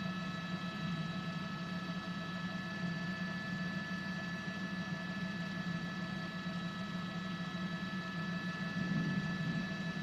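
Steady drone of a news helicopter's turbine and rotors heard from inside the cabin, a low hum with a constant high whine over it.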